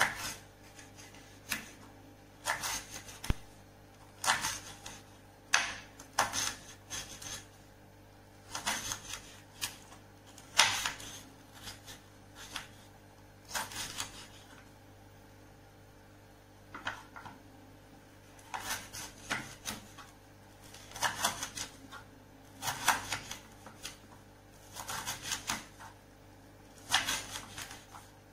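Kitchen knife slicing large red chilies on a wooden cutting board: runs of quick taps as the blade strikes the board, with short pauses between runs.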